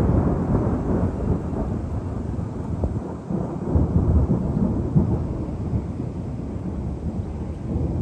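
Rolling thunder, a low rumble that is loud at first and slowly dies away, swelling again briefly about four and five seconds in.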